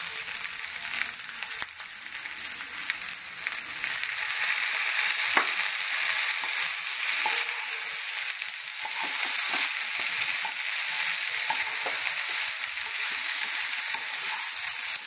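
Idli pieces sizzling in a hot pan while a wooden spatula stirs and scrapes them, with small knocks of the spatula against the pan. The sizzling grows louder about four seconds in.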